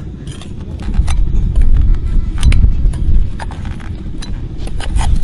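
Metal spoon clicking and scraping against a crucible as slow, thick molten lava rock is dug out of it, over a loud low rumble.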